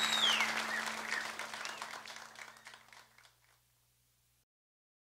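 Audience applauding, with a high whistle that cuts off within the first half second; the clapping thins and fades away over about three seconds into silence.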